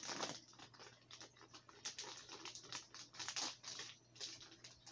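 Crinkling and rustling of a plastic soft-bait package being handled, an irregular run of small crackles.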